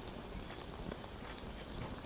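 Small wood fire in a Firebox camp stove crackling faintly, a few sparse ticks over a steady hiss.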